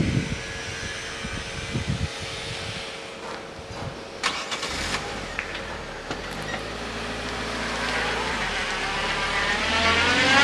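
ALn 663 diesel railcar approaching the level crossing, its engine hum growing steadily louder over the last few seconds, with the engine note climbing in pitch near the end as it speeds up. A couple of low thumps come near the start.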